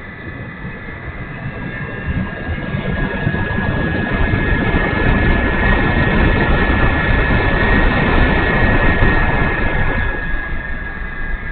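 E-flite Timber RC plane's electric motor and propeller whining steadily in flight, growing louder to a peak about two-thirds of the way through and then easing off as it passes, over a low rumble.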